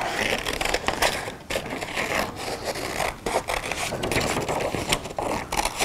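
Scissors cutting through stiff construction paper in many short, irregular snips, with the sheet rustling and scraping as it is turned around the shamrock outline.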